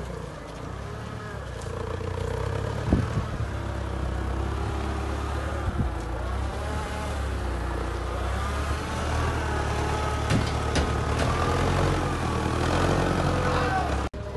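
Forklift engine running steadily, with a few sharp knocks and clunks along the way.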